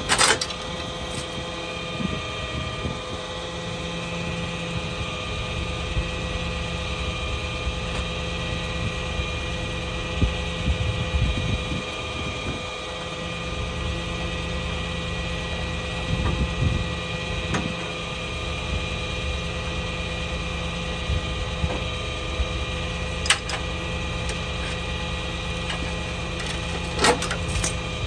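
A tow truck's engine idling steadily, with a few sharp clanks of tow chains near the start and twice near the end.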